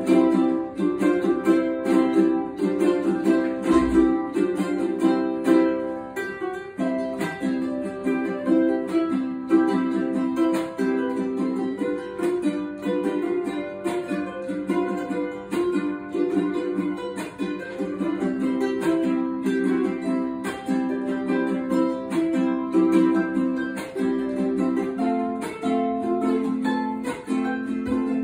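Two ukuleles playing an instrumental duet, a busy run of plucked notes over chords.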